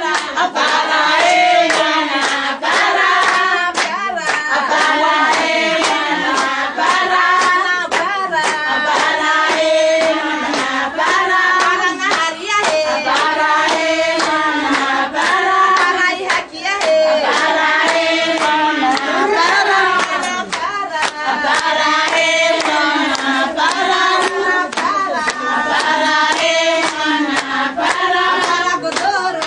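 A group of women singing together to steady rhythmic hand-clapping.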